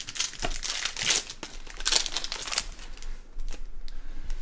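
Topps Bundesliga Chrome trading card pack wrapper crinkling and tearing as it is opened by hand, in several rough rustling bursts that thin out after about three seconds.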